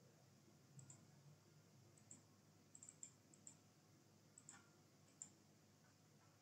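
Faint computer mouse clicks, about ten of them scattered over five seconds, some in quick double-click pairs.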